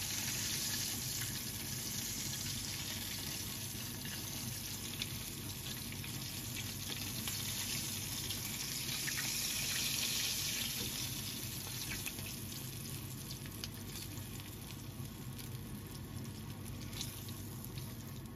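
Floured chicken drumsticks for karaage frying in shallow oil in a frying pan: a steady sizzle with small crackles that swells a little about halfway through.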